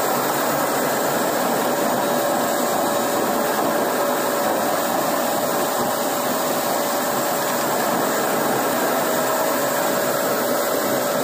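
Concrete floor grinder-polisher and its dust-extraction vacuum running steadily while polishing with resin-bond diamond pads: a continuous rushing noise with a steady mid-pitched tone.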